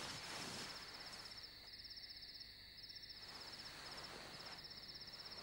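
Faint crickets chirping in rapid, even pulses, with a few short breaks, over a low hiss.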